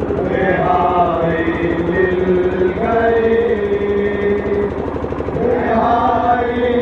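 A noha (Shia mourning chant) sung by voices through horn loudspeakers, in drawn-out phrases that swell near the start and again about five and a half seconds in, over a steady drone.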